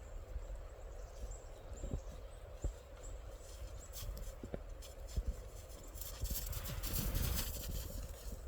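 Wind rumbling on the microphone in a snowstorm, with scattered irregular soft knocks and crunches. A louder burst of hiss comes about six to seven and a half seconds in.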